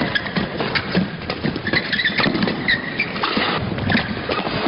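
Badminton doubles rally: rubber-soled shoes squeak briefly on the court mat several times amid the sharp taps of rackets striking the shuttlecock, over a steady arena crowd murmur.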